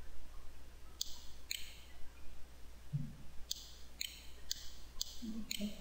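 Computer mouse clicking: about seven short, sharp clicks, some in pairs half a second apart.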